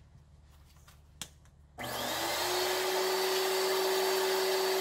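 A click, then the brushed motor of a salvaged shop-vac housed in a wooden dust-collection box switches on about two seconds in. It quickly comes up to speed and runs steadily with a high whine.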